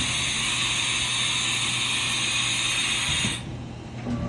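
Haas VF-2 CNC vertical machining center working through a tool change: a steady hiss over a low machine hum that cuts off sharply about three seconds in, followed by a few light knocks.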